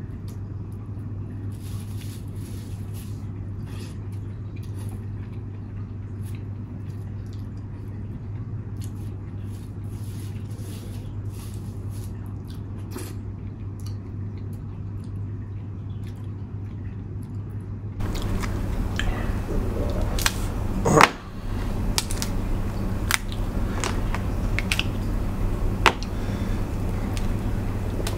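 Eating sounds of crab and other seafood being cracked and picked apart by hand, with chewing and scattered shell crackles, over a steady low hum. About eighteen seconds in the background gets louder and noisier, the crackles turn sharper, and a loud knock comes a few seconds later.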